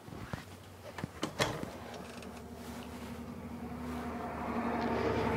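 A few sharp clicks and knocks in the first second and a half, then a steady hum that slowly grows louder.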